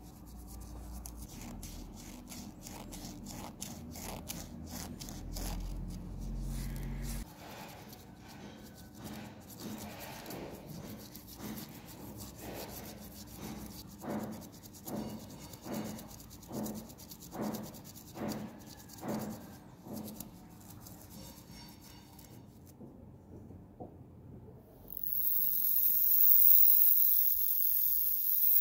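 Small clock parts scrubbed by hand with copper-coloured metal wool and a brush: soft rubbing and scratching, with a run of regular strokes about once a second partway through. Near the end a bench grinder's wire wheel starts brushing a perforated metal clock part, a loud steady hiss.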